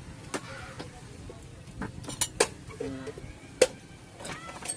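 Metal spoons scraping and clicking against the inside of young coconuts as the soft meat is scooped out: a handful of short, sharp clicks, the loudest about three and a half seconds in.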